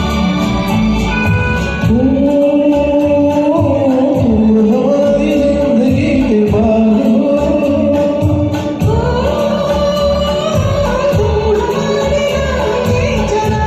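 Karaoke backing track of a Hindi film song, with a voice singing the melody over it from about two seconds in, holding long, sliding notes.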